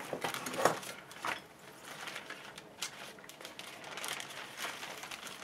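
Hands handling small plastic parts and packaging, with irregular clicks and crinkling rustles.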